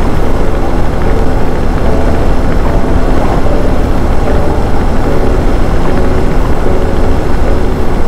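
Yamaha motorcycle engine running steadily at cruising speed on the open road, loud on the bike-mounted camera, its engine note wavering a little as the throttle changes.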